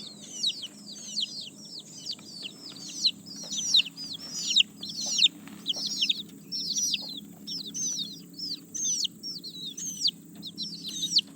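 A group of baby chicks peeping continuously, many short high peeps each falling in pitch, overlapping several times a second, over a faint low steady hum.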